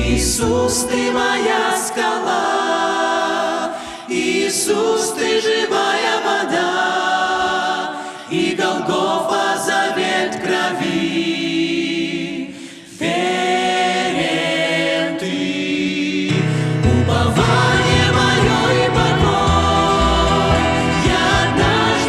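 A mixed group of voices sings a Russian-language worship song in harmony, phrase by phrase with brief pauses for breath. They are backed by a small acoustic band of violin, keyboard, upright bass and acoustic guitar, whose low end fills out about three-quarters of the way through.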